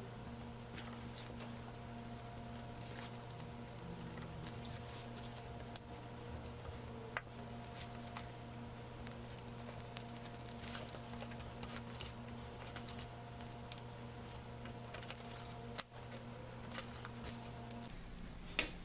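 Razor knife cutting through latex-coated trash-bag plastic, with faint, irregular scratches and small clicks as the blade slices and the plastic is handled. A steady low electrical hum runs underneath.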